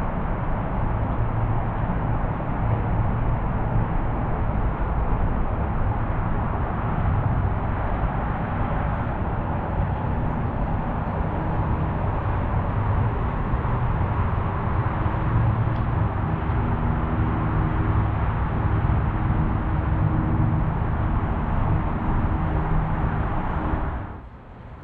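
Steady outdoor background noise: a low rumble with hiss above it. It dips briefly near the end.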